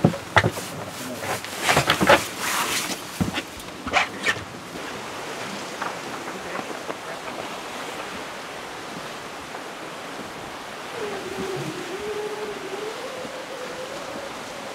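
Sharp knocks and rustling of gear and the hatch as a crew member climbs out of a sailing boat's cabin, then a steady rush of wind and sea on deck. About eleven seconds in, a low wavering moan rises and falls for a couple of seconds.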